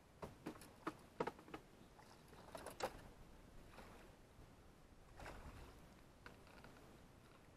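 A hooked fish being netted beside a canoe: a run of short knocks and splashes in the first three seconds as the landing net goes into the water and the fish thrashes at the surface, then a soft wash of water about five seconds in as the net is lifted.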